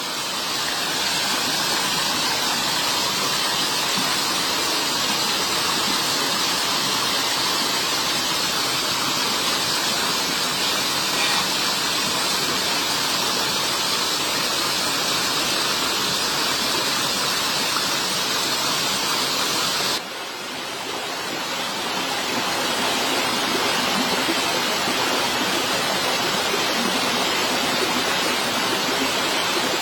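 Steady rushing water, even and unbroken, dropping away suddenly about two-thirds through and building back up over a couple of seconds.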